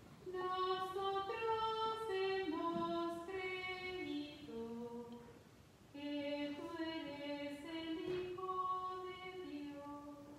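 A solo woman's voice singing a slow hymn melody in held notes, at the communion of the Mass, in two phrases with a short break about halfway.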